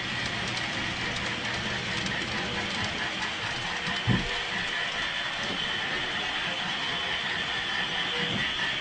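HO-scale model trains running on the layout: a steady whir of small motors with a faint high whine and light irregular clicking of wheels and gears over the track, and one short low thump about four seconds in.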